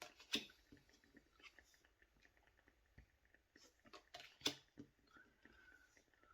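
Faint handling of tarot cards: scattered soft taps and clicks, with two sharper taps about a third of a second in and about four and a half seconds in.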